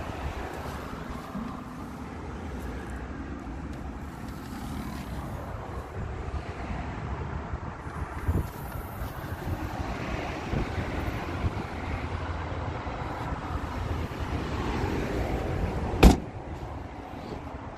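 Steady outdoor rumble with wind on the microphone, then one loud slam about 16 seconds in as the 2006 Fiat Punto's hatchback tailgate is shut.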